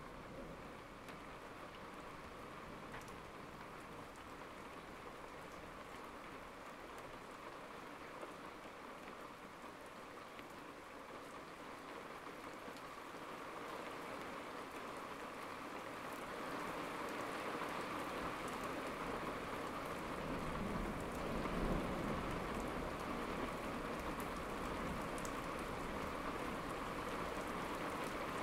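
Steady rain falling, growing heavier about halfway through, with a low rumble of thunder swelling about two-thirds of the way in.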